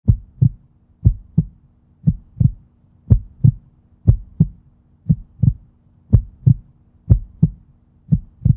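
Heartbeat sound effect: paired lub-dub thumps about once a second, over a low steady hum.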